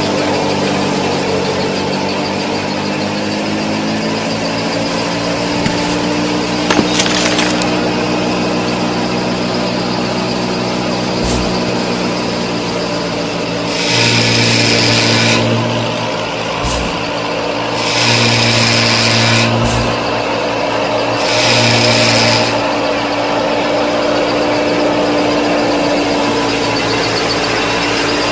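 Small electric motors of a DIY model tractor and road roller running with a steady whine. Three louder buzzing spells of a second or two break in near the middle.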